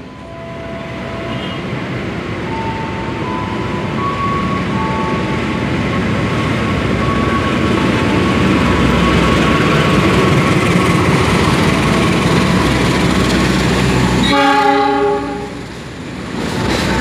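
CC206 diesel-electric locomotive and its passenger coaches rolling in, the engine and wheel noise building up. Thin steady high tones run over it, and there is one short horn blast about fourteen seconds in.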